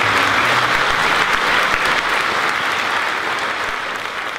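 A large audience applauding at the end of a song, the clapping steady at first and then slowly dying away over the second half.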